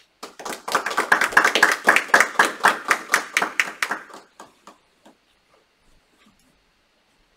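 A small group of people applauding, clapping quickly for about four seconds before it thins out and stops.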